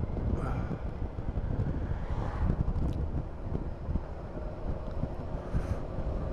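Honda Forza 350 scooter being ridden at road speed, heard mostly as wind buffeting the microphone, with the engine and tyres running underneath. A faint steady engine note comes up about four seconds in.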